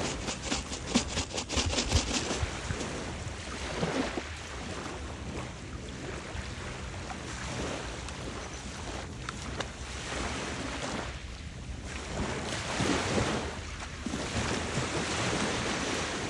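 Small waves washing onto a sand and pebble shore, the wash swelling and fading every couple of seconds.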